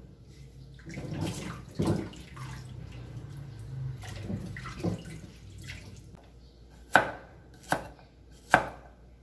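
Water from the sink tap and hands rinsing fresh turmeric root, with a few knocks, then a cleaver slicing the turmeric on a wooden chopping block: three sharp chops about 0.8 s apart near the end.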